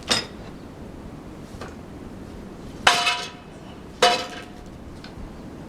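Three sharp metal clanks with a brief ring, about a second in, near three seconds and about four seconds in, from steel sawmill log-handling gear being shifted and set.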